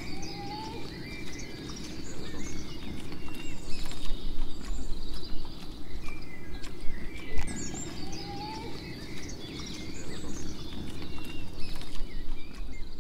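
Bird chirps and short whistled calls over a steady low rumble, as in a nature ambience track; the same calls come back about seven seconds later, so the recording repeats.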